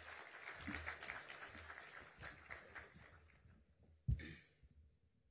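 Audience applauding, the clapping thinning and fading out after about three seconds, then a single sharp thump about four seconds in.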